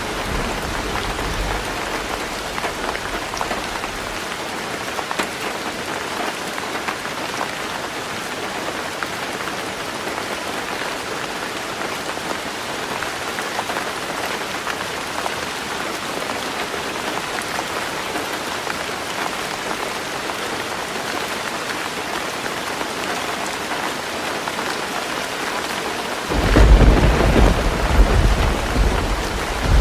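Heavy rain drumming steadily on a roof. A loud, deep rumble sets in a few seconds before the end, and another fades out in the first second.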